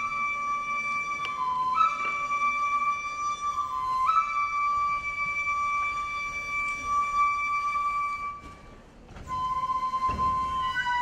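Solo shinobue, a Japanese bamboo transverse flute, playing long held notes, each new note starting with a short upward slide. There is a brief break for breath about eight and a half seconds in before the next, lower note.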